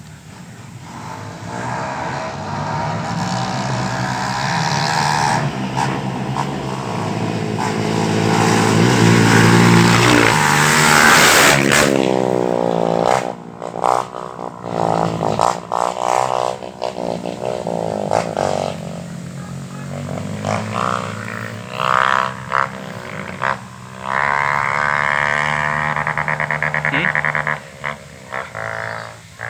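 Off-road rally motorcycle engines passing at speed: one grows louder to a peak about eleven seconds in and its pitch drops as it goes by, then engine notes rise and fall, with another loud steady engine note for a few seconds near the end.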